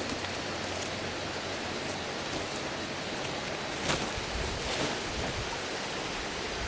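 Steady, even hiss of outdoor noise, with a few faint ticks and a short knock about four seconds in.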